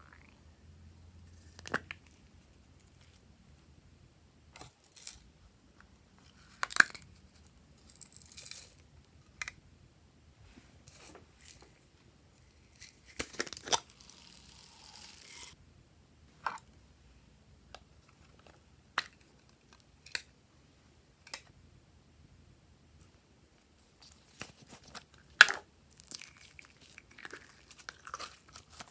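Glossy slime being worked by hand, with irregular sticky pops, clicks and crackles. About halfway through there is a couple of seconds of rustling hiss.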